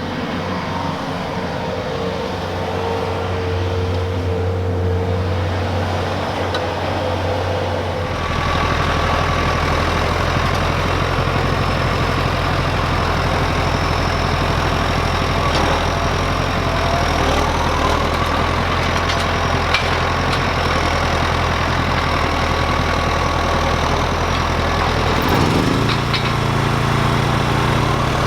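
Tractor engine running steadily under baling work, growing louder about eight seconds in, with its note shifting near the end.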